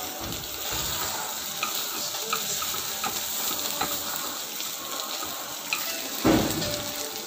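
Bitter melon and egg sizzling in a small nonstick wok while being stirred with wooden chopsticks, with light ticks of the chopsticks against the pan. A single dull thump about six seconds in.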